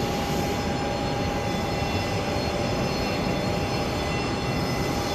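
Jet airliner engines running steadily: a constant rumble with a steady high whine over it.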